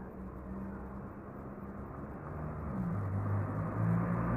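Ford Focus Mk3 four-cylinder engine with the rear muffler deleted, heard approaching from a distance: a steady engine note that drops in pitch a little under three seconds in, then grows louder as the car nears.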